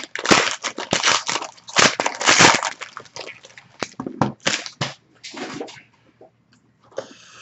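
Card packaging and trading cards being handled: dense crinkling and rustling for about the first three seconds, then scattered softer rustles and taps.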